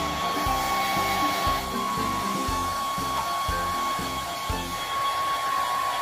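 Handheld hair dryer running steadily, blowing with a constant whine, over background music with a regular beat.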